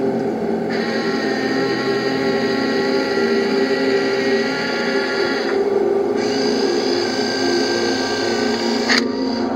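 Steady whine of a 1:16 RC tank's small electric motors and gearboxes as the model Panzer IV drives and traverses its turret. The higher part of the whine drops out briefly twice.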